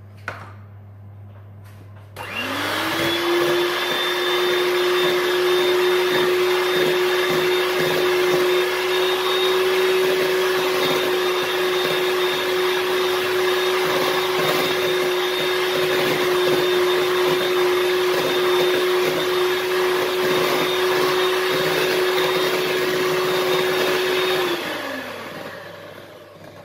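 Handheld electric mixer whipping cream filling in a glass bowl. After a short click, the motor starts about two seconds in, rises to a steady pitch and runs evenly, then is switched off near the end and winds down.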